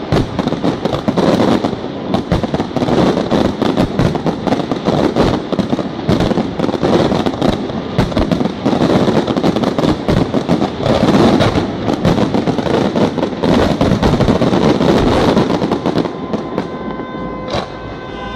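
Dense, rapid barrage of aerial firework shells bursting, with crackling stars layered over the reports. About sixteen seconds in the barrage thins out and a steady pitched tone is left sounding.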